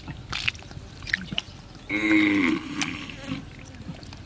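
Hands groping through wet mud and shallow water, making irregular small splashes, squelches and drips. About two seconds in, a brief voice is heard, a short call or exclamation that is the loudest sound.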